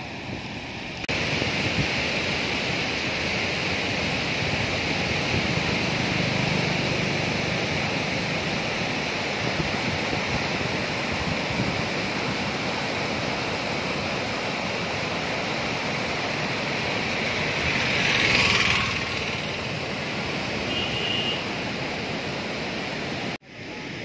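Muddy floodwater rushing and churning over a river weir, a steady roar that swells louder about three-quarters of the way through. A brief high tone sounds near the end.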